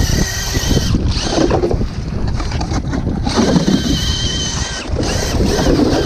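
Cordless drill spinning a spiral ice auger down through lake ice: a steady motor whine over the rumble of the auger grinding through the ice.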